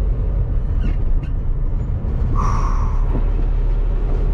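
Renault Kangoo van driving on a country road, heard from inside the cabin: a steady low engine and road rumble. A brief higher-pitched noise cuts through about two and a half seconds in.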